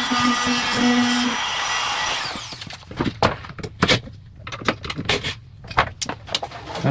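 Handheld wood router running at full speed as it cuts a hinge mortise into a wooden door. About two seconds in it is switched off and winds down with a falling whine, followed by a run of sharp, irregular knocks and clatters.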